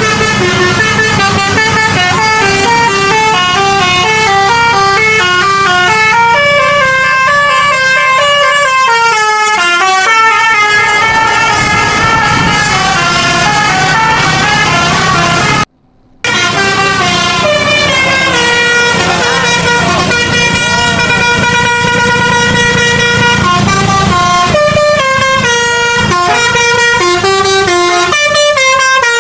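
Bus 'telolet basuri' musical horn playing a tune of stepped notes over the bus engine's low running rumble. The sound breaks off for a moment just past the middle and resumes.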